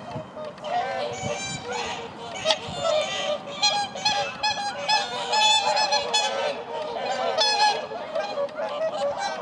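A flock of whooper swans calling, many honking calls overlapping in a continuous chorus.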